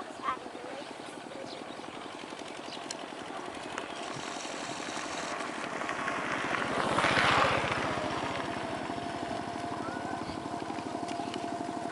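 A small engine running steadily, its rapid even pulses continuing throughout. It grows louder to a peak about seven seconds in, then eases off.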